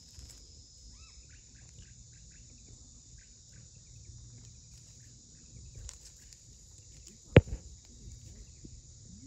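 Steady high chirring of insects, with scattered faint chirps and one sharp knock about seven seconds in.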